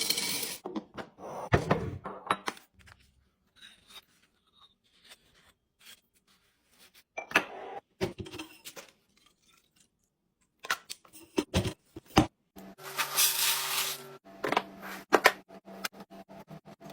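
Scattered knocks, clicks and thunks of food and drink containers being handled and set down while a fridge is restocked, with short quiet gaps between them. About three-quarters of the way through there is a rushing hiss lasting about a second and a half, and near the end a run of quick, even ticks.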